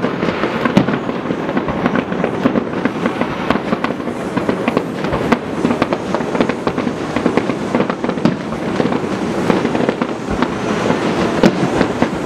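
Aerial fireworks display: dense, continuous crackling and popping of bursting shells, with many small reports close together and no pauses.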